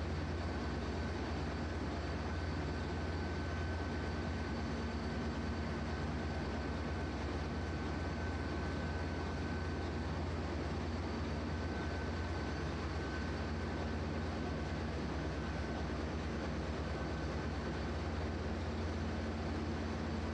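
Steady machinery drone of a ship's engine room: a strong low hum with a faint steady whine above it.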